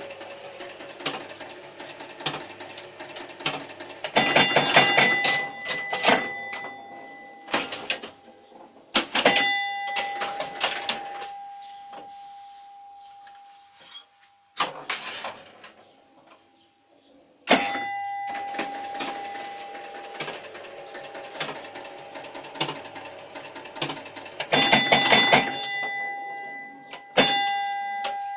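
1966 Williams A-Go-Go electromechanical pinball machine in play: bursts of rapid clicking and clacking from its relays, solenoids and score mechanism, with bell tones ringing out and fading several times. There is a brief lull near the middle.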